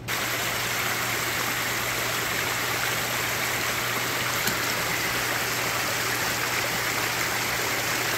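Steady rush of water pouring out below a dam, an even, unbroken noise with a steady low hum underneath.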